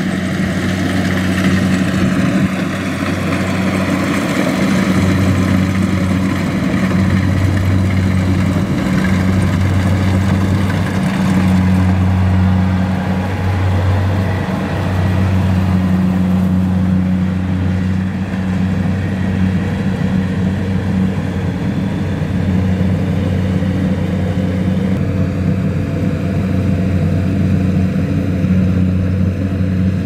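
Kubota DC-70Plus rice combine harvester running steadily as it cuts and threshes rice: an even, deep engine hum with the machine's clatter above it.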